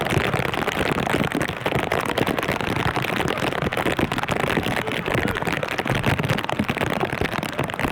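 Steady rain falling, a dense, even patter of many small drop impacts.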